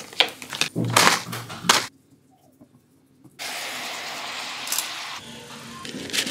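Plastic lid and foil film crinkling and clicking as they are peeled off a self-heating instant noodle bowl. After a short near-silent pause comes a steady hiss of about two seconds from the steaming, freshly heated bowl.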